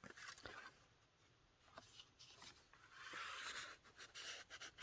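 Faint rustle of paper pages and cards being handled and turned in a handmade junk journal, with a few soft ticks and a brief papery swish about three seconds in.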